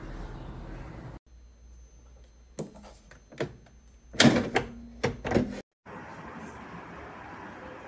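Basket drawer of a Tefal Easy Fry & Grill Classic air fryer being handled: a few sharp plastic knocks, then a loud cluster of clunks about halfway through. Steady hiss in the first second and the last two seconds.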